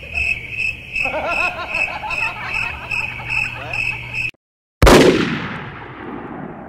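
A high beeping tone pulsing about two and a half times a second, with wavering chirpy sounds over it, cuts off abruptly. Half a second later a single loud bang rings out and dies away over about two seconds.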